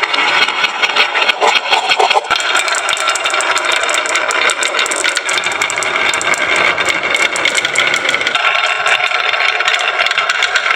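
Many marbles rolling and clattering down a wooden marble-run track, a dense continuous rattle of small clicks; the deeper rolling rumble drops away about eight seconds in.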